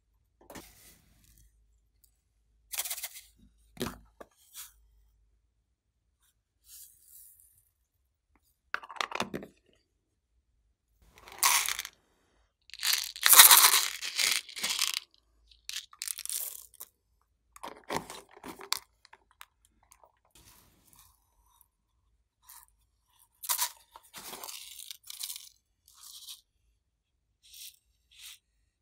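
Plastic containers of sequins and clay being handled and opened, with short spells of crinkling and rattling between quiet gaps. The longest and loudest stretch comes about halfway through.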